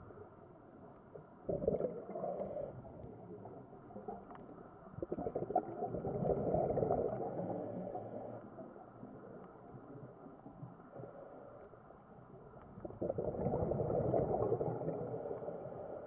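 Scuba diver breathing through a regulator underwater: exhaled bubbles rumble and gurgle in three surges a few seconds apart, each with a short hiss.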